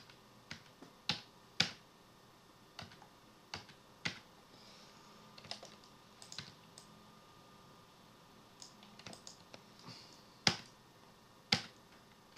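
Irregular clicks of a computer mouse and keyboard keys, about fifteen scattered through, with the two loudest near the end.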